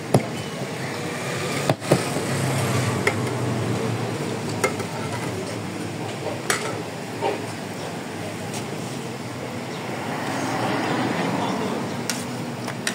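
Busy roadside street ambience: traffic and people talking nearby, with a few sharp clicks scattered through it.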